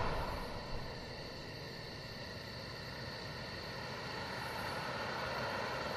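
Faint, steady background rumble and hiss, like distant traffic, growing slightly louder over a few seconds.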